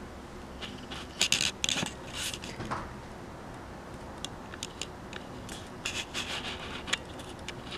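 Handling noise on the camera as it is held and moved: irregular short rubbing and scratching scrapes with a few small clicks, the strongest clusters about a second in and near the end.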